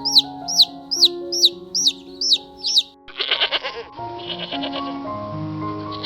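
Rapid high chirps, each falling in pitch, about two a second over background music, giving way about three seconds in to a long, wavering bleat from sheep or goats.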